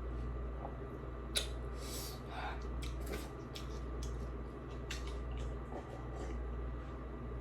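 Close-up eating: wet chewing and mouth noises with a few sharp clicks of a utensil, over a steady low hum.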